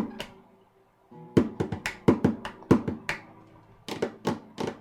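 Acoustic guitar strumming short chords, each stroke ringing briefly: a few strums, a pause of about a second, then a quick run of strokes.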